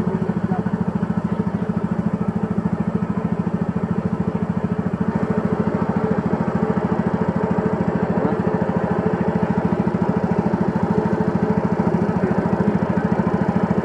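The small engine of a narrow wooden boat running steadily, with a fast, even throb.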